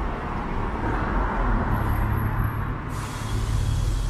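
Cars passing on a cobblestone street, among them a Chevrolet Camaro, with a steady low engine and tyre rumble. About three seconds in, a sudden loud hiss lasts about a second.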